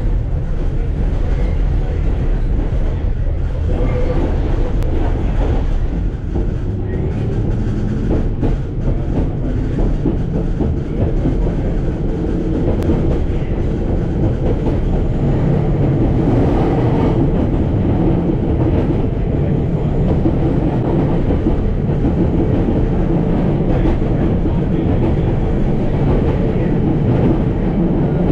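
A Melbourne SW6 W-class electric tram running along the track, heard from inside its passenger saloon: a steady, loud, low running noise of wheels on the rails and motors, with faint steady tones mixed in.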